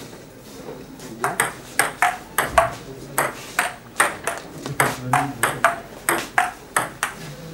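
A table tennis rally: the plastic ball clicking off the paddles and the table in a quick, even run of sharp clicks, starting about a second in.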